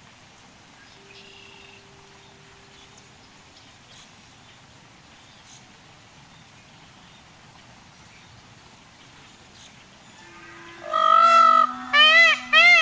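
Faint outdoor background, then near the end a large bird breaks into loud honking calls. It gives one longer call, then short rising-and-falling honks at about two a second.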